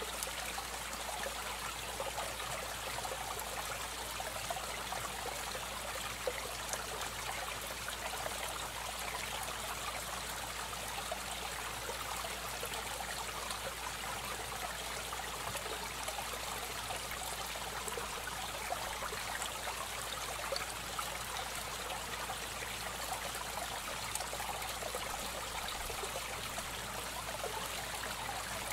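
Aquarium water trickling and splashing steadily, as from a filter outflow, without pause.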